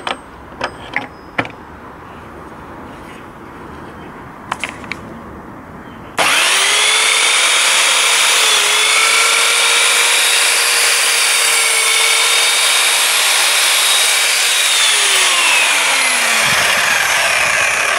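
A few clicks as the saw's hold-down clamp is set on the workpiece, then the Evolution R210CMS mitre saw's 1200 W motor starts abruptly and runs with a steady whine as the multi-purpose blade chops the end off a piece of pine architrave. Near the end the whine falls in pitch as the motor winds down.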